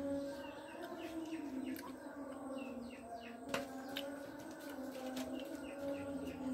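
Small birds chirping, quick short downward chirps repeating several times a second. One sharp click comes about three and a half seconds in.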